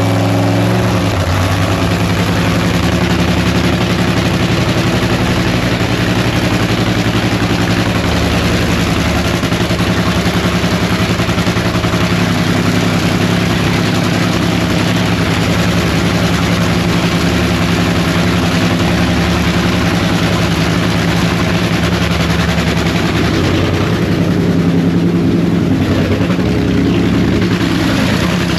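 Nitromethane-burning supercharged V8 of a nitro drag racing car idling loudly and unmuffled during a pit warm-up, a steady, even note that shifts briefly near the end.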